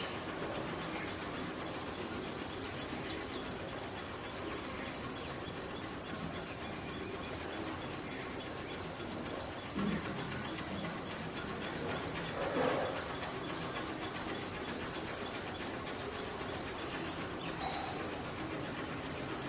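A bird repeating a high, even chirp about four times a second in one long unbroken series that stops near the end, over a steady background hiss.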